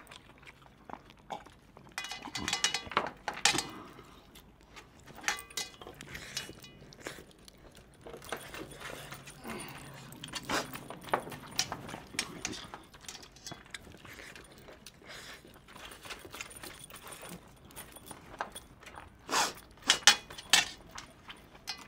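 Metal clinks and scrapes of silver rings and bangles against a steel thali as food is scooped up by hand. They come as scattered sharp clicks, with louder clusters about two seconds in, around ten seconds in and near the end.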